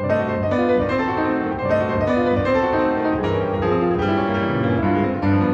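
Background piano music, a melody of held notes over low chords.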